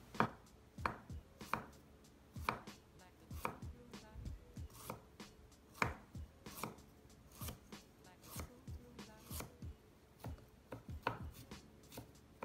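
Chef's knife slicing fresh ginger root into thin slices on a wooden cutting board: a steady series of sharp knife strokes knocking on the board, a little more than one a second.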